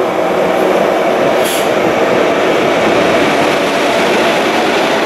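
Freight train of tank wagons, hauled by a Škoda class 182 electric locomotive, passing close by: a loud, steady rumble of wheels on the rails, with a short high hiss about a second and a half in.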